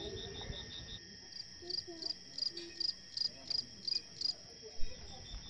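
Crickets calling at night: a steady high trill under a pulsing chirp. From about a second in, a louder chirp repeats about three times a second for some three seconds. Faint distant voices and a single low thump near the end.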